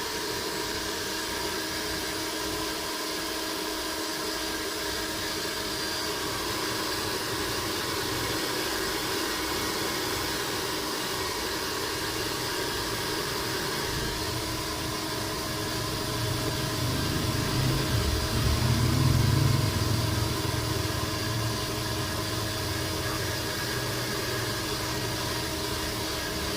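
Pet hair dryer running steadily: an even rush of air over a constant motor whir. A deeper rumble swells for a few seconds past the middle.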